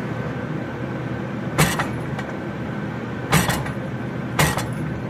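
Three hammer blows on hot 3/4-inch square steel bar at the anvil as the tail is spread out: one about a second and a half in, then two more spaced about two seconds and one second apart. A steady rushing noise runs underneath.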